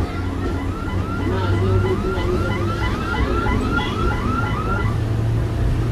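Local train's motor coach running with a steady low rumble. Over it, a tone rises and falls quickly, about three times a second, like a warbling siren, and stops about five seconds in.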